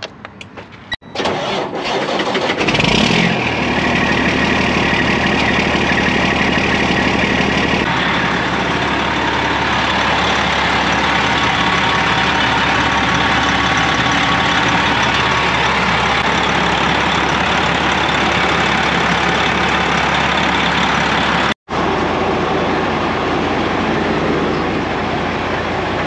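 Diesel semi truck engine cranked with the key and catching about two and a half seconds in, then idling steadily. Near the end the sound cuts out briefly and resumes as a slightly quieter running engine.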